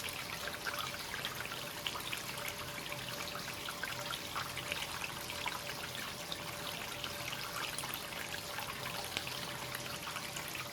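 Free-flowing hot spring water running continuously into a bath, a steady trickle and splash with no pauses.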